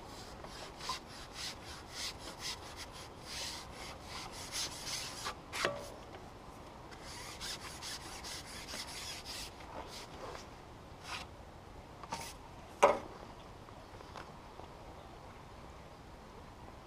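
Carbon pole-fishing pole being pulled back in a series of short rasping, rubbing strokes as it slides through the hands and against the gear, with a few sharp knocks, the loudest about three-quarters of the way through.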